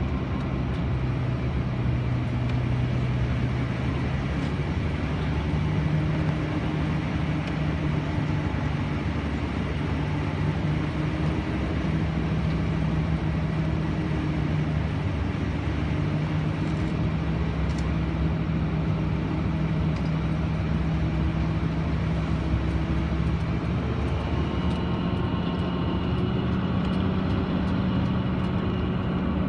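Tour bus heard from inside the cabin while descending a mountain road: steady engine and road noise with a low engine hum that steps up in pitch about four seconds in and again near the end.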